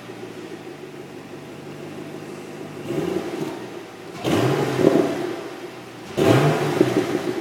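Chevrolet Camaro 6.2-litre V8 idling through its exhaust, then blipped three times. The first blip is short; the second and third are longer and louder, each rising in pitch and falling back to idle.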